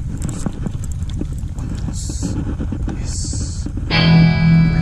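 Wind rumbling on the microphone, with clicks, rustles and short hissing sounds from handling the fishing rod and the fish as a snakehead is landed. Guitar music starts about four seconds in.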